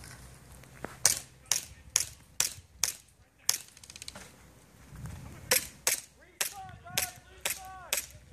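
Airsoft pistol with a suppressor-style barrel firing single sharp shots, about two a second, in two runs of about six shots with a pause of about two seconds between them.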